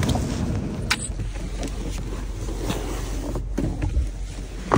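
A steady low rumble with a few sharp clicks and knocks as gear is handled in the back of an SUV, one about a second in and another near the end.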